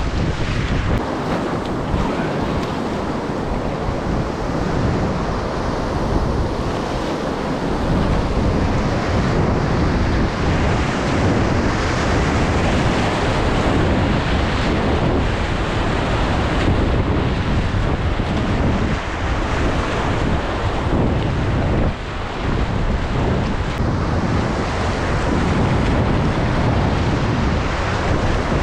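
Rushing whitewater of a river rapid, a loud steady roar of water, with wind buffeting the microphone.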